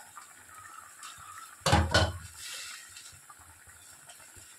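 Thin curry simmering in an open kadai with a faint steady bubbling, and a loud double knock about two seconds in.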